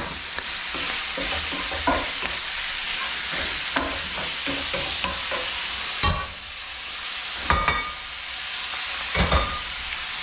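Chopped beef and onions sizzling in a hot skillet, stirred and scraped with a spatula. About six seconds in, a clatter of pans being handled on the stove's metal grate, then a lighter sizzle with a few more knocks near the end.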